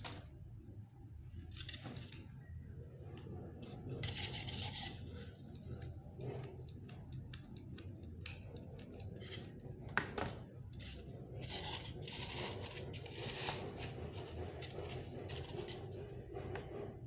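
Craft tools and floral foam being handled on a tabletop: scattered sharp clicks and knocks, with stretches of rustling and scraping, over a low steady hum.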